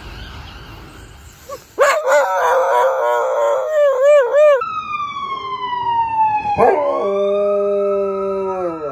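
Dog howling: after a sudden start about two seconds in, a wavering, yodelling howl, then long drawn-out notes, one sliding slowly down in pitch and one held steady before dropping off near the end.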